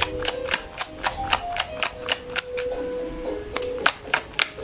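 Tarot deck being shuffled by hand: cards clicking and slapping against each other in quick, irregular taps, about five a second. Soft background music with held notes plays underneath.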